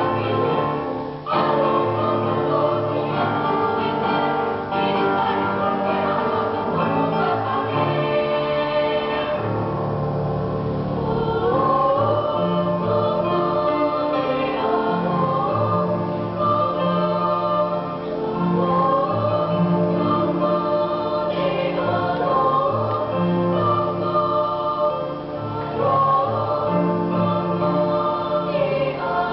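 School choir singing in several parts, steady and full throughout.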